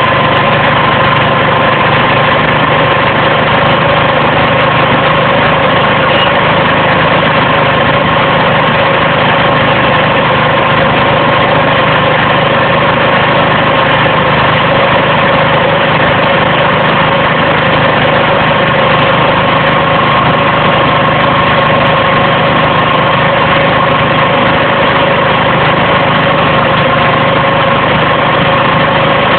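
Gas-powered 24-inch Leader PPV fan running steadily at constant speed: the 9 horsepower Vanguard engine's drone mixed with the rush of the fan, with steady tones held throughout.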